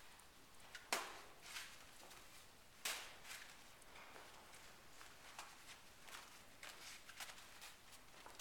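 A flag on a stick swished and flapped through the air around a standing horse, the usual way of desensitizing a horse to it. Two sharp swishes come about one and three seconds in, followed by quicker, softer flaps.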